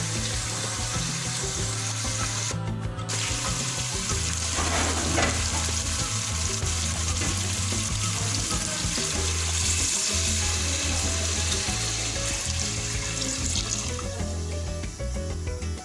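Steady hissing and sizzling of chicken curry cooking in the pot, over background music with a low bass line. The hiss breaks off briefly about three seconds in and fades out near the end, leaving the music.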